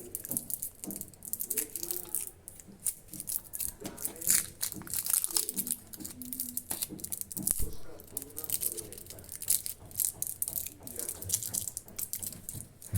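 Crunchy toffee being bitten and chewed close to the microphone: a fast, irregular run of crisp crunches.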